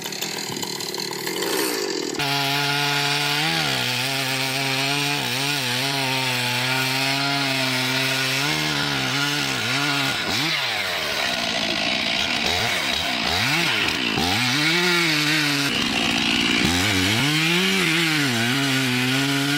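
Chainsaw running and cutting wood. From about two seconds in the engine note holds steady, then sags and climbs again and again as the chain bites into the wood and frees.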